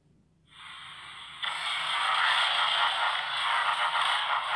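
A noisy hiss starts about half a second in, jumps much louder about a second later and then holds steady: the sound effect of an animated Mtn Dew logo.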